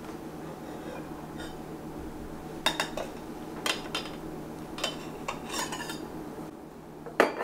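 A metal knife and spatula clinking and scraping against a metal baking pan and a plate as a slice of frosted cake is cut and lifted out: a few separate clinks, with louder clatters near the end.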